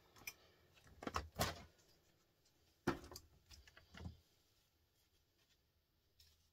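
Small scrap transformers and motors clunking and rattling against each other as they are picked out of a heap, a few separate knocks in the first four seconds.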